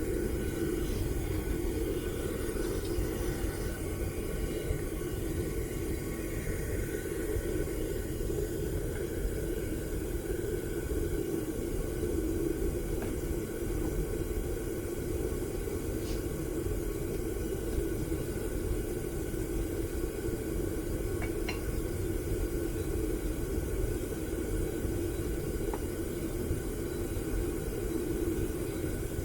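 Homemade propane furnace's burner running steadily: a continuous, even rumble while the brass melts.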